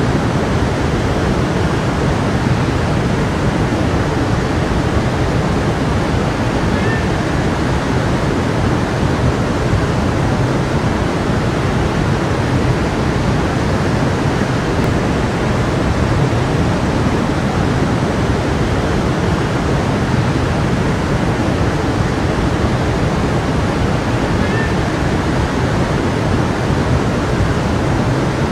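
Steady rush of a flowing stream, water running continuously without pause.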